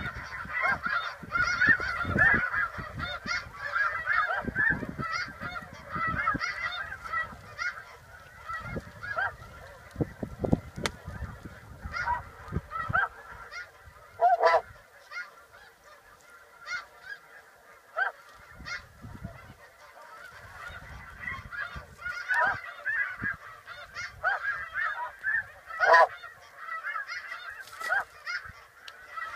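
Snow geese calling: a dense, continuous chorus of high, yelping honks that thins out in the middle and builds again near the end. Gusts of wind buffet the microphone through the first half and again later.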